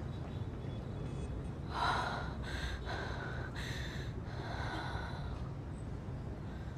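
A young woman's stifled, gasping sobs, muffled behind her fist: four short breaths between about two and five seconds in, the first the loudest.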